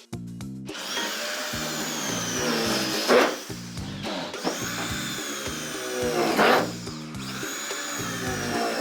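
Power tool motor running in repeated spells, its whine rising and then sagging in pitch, with a loud surge about three seconds in and again near six and a half seconds, over background music.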